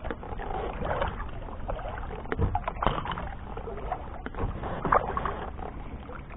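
Kayak paddling: the double-bladed paddle dipping and pulling through the water in strokes about every two seconds, with splashing and drips, and a couple of light knocks between strokes.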